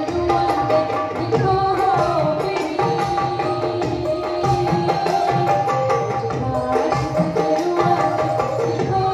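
Live South Asian song: a woman singing into a microphone over sustained harmonium notes and a steady rhythm played on hand drums.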